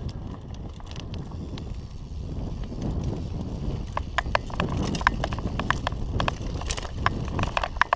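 Mountain bike rolling fast down a dry, rocky dirt trail: a steady low rumble of tyres and wind on the microphone, with a run of irregular sharp clicks and rattles from loose stones and the bike jolting over rough ground from about four seconds in.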